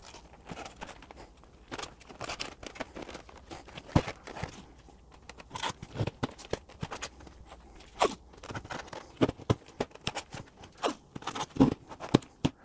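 Blue painter's tape being pulled off the roll, torn and pressed onto styrofoam, with the foam scraping and creaking under gloved hands: an irregular run of crackles and scrapes with a few louder knocks.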